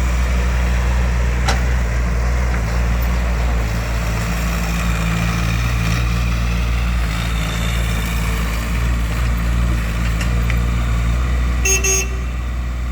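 Mini excavator's small diesel engine idling steadily, with a brief high-pitched tone near the end.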